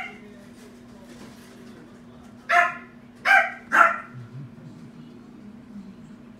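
Miniature dachshund puppy giving three short, high-pitched yapping barks in quick succession, starting about two and a half seconds in, over a faint steady hum.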